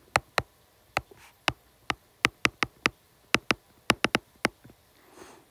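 A stylus tip tapping on a tablet's glass screen: a string of about sixteen sharp, irregularly spaced clicks over four and a half seconds, with a faint scratch of writing near the end.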